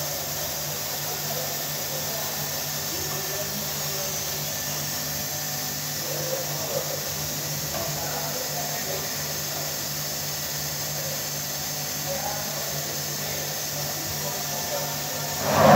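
Steady hum of printing-press machinery, with a low steady tone underneath.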